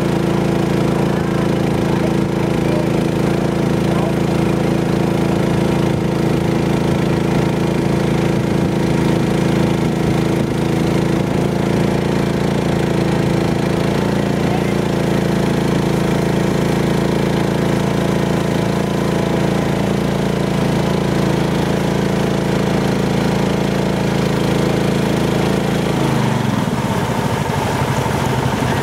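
Boat engine running steadily under way. Near the end its pitch drops as the engine slows.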